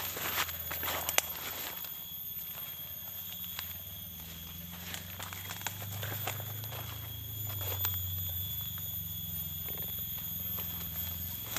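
Footsteps pushing through dry leaves and undergrowth, with scattered snaps and rustles, the sharpest snap about a second in. Under them runs a steady high-pitched insect drone.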